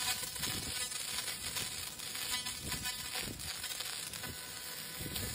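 AKQ 1000-watt fiber laser cleaning machine stripping paint from a metal tool-box panel: a steady crackling hiss as the beam sweeps the surface.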